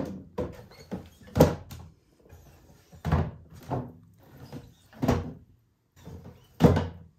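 Clear acrylic boxes and their lids being handled: a series of hard plastic knocks and scrapes, about eight of them, the loudest about a second and a half in and near the end.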